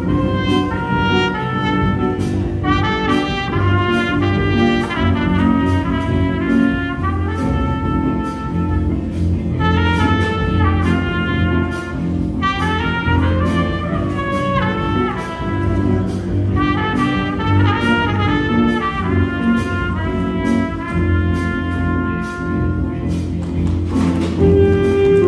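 Live jazz band playing, with the brass and saxophones in short rhythmic phrases over an upright bass line and sharp percussion strokes. Near the end a single held horn note comes in and rises slightly.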